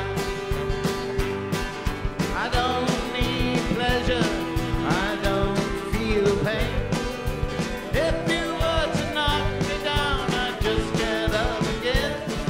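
Band music with a steady drum beat and a singing voice.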